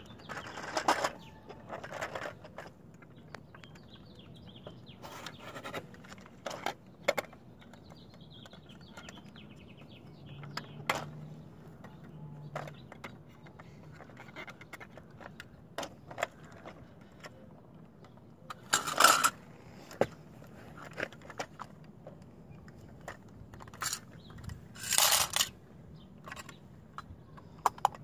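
Toy front-loader garbage truck and toy dumpster being handled: scattered small clicks, scrapes and rattles of toy parts, with three louder rattling bursts, near the start, about two-thirds through and near the end.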